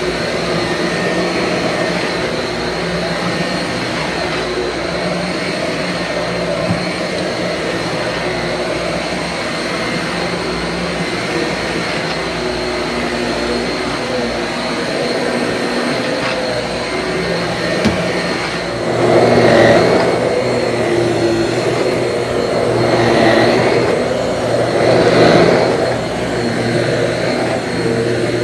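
Bissell PowerClean Slim Pet corded stick vacuum running with its brush roll spinning as it is pushed over carpet: a steady motor whine that swells louder several times in the last third.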